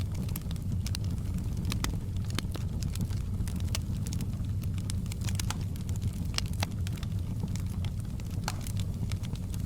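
Logs burning in a fireplace: sharp, irregular crackles and pops over a steady low rumble.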